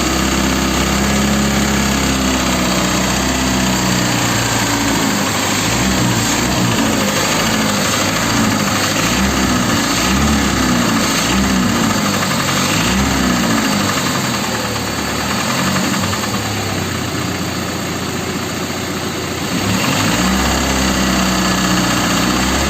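Chrysler 2.4-litre four-cylinder engine in a GAZ Volga running, blipped up and down several times in the middle, then settling back to a steady run. The owner is demonstrating a knock in this engine.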